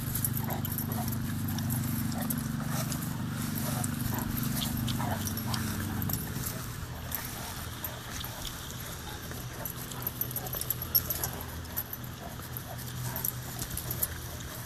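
Two large dogs, a harlequin Great Dane and a black dog, play-fighting on grass: scattered short snaps, knocks and scuffles, busiest near the end. Under them a steady low hum stops about halfway through.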